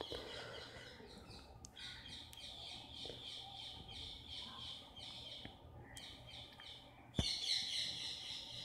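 Faint, continuous chirping of birds, with a single sharp click near the end.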